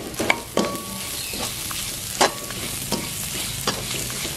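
Chopped onions, dried red chillies and curry leaves frying in oil in a metal kadai, sizzling steadily while a ladle stirs them, scraping against the pan a handful of times.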